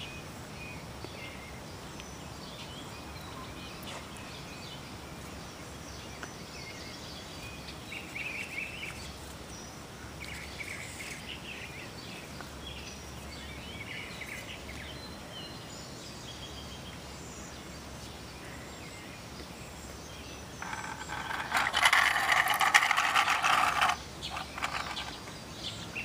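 Outdoor ambience with faint bird chirps now and then, and a louder burst of noise lasting about three seconds near the end.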